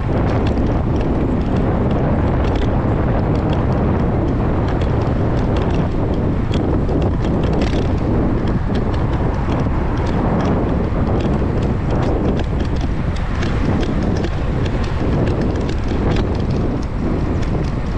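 Wind buffeting the microphone on a moving bicycle, a loud, steady low rumble, with small irregular clicks and rattles throughout.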